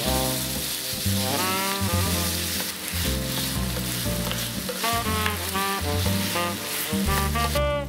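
Cubes of marinated beef sizzling as they are stir-fried over high heat in a stainless steel skillet, turned with a spatula; the sizzle stops just before the end. Background music plays underneath.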